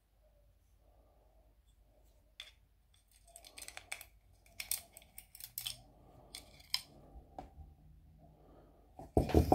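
Light clicks and scrapes of small alternator parts and a screwdriver being handled on a tabletop, coming in quick runs from about three seconds in, then a louder bump near the end.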